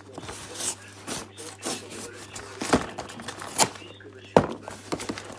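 An unsharpened KA-BAR fighting knife sawing and scraping at a cardboard parcel, tearing the cardboard in irregular rasping strokes. There are a few sharp stabs or knocks, the loudest about four seconds in. The blade is dull and does not cut cleanly.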